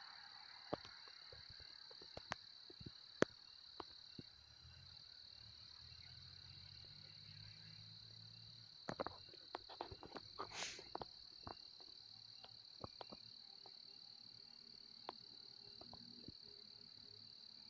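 Faint, steady high-pitched chirring of crickets at night, with scattered sharp clicks, bunched together about nine to eleven seconds in.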